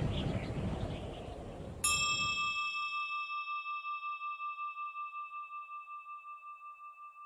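Rushing wind of flight through the air fades out, and about two seconds in a single struck bell rings out: one clear tone with higher overtones that dies away slowly with a steady pulsing.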